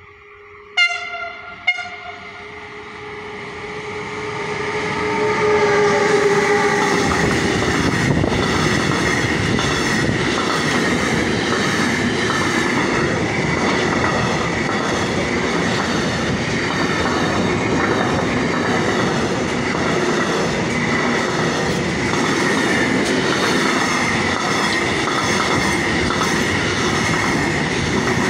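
An electric freight locomotive gives two short horn blasts about a second apart near the start as it approaches. Then the loud, steady rumble of a long container freight train passing close by builds up, with the wheels clattering rhythmically over the rails and a steady high tone running through it.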